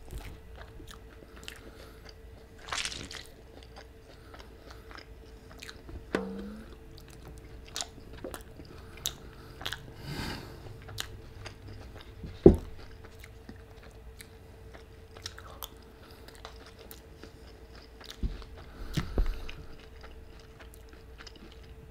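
Close-miked chewing of a mouthful of fried boneless chicken wing, with many small wet mouth clicks and one sharp, loud click about halfway through. A faint steady hum runs underneath.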